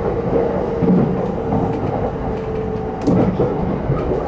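Electric commuter train running at speed, heard from inside the carriage: a steady rumble of wheels on rail with a faint motor hum that fades out a little before the end, and a few light knocks.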